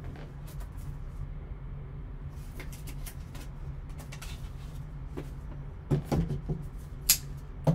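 Gloved hands handling a shrink-wrapped cardboard trading-card box: light rustles and taps, then a few sharper knocks in the last two seconds as the box is turned over and set down on the table. A steady low hum sits underneath.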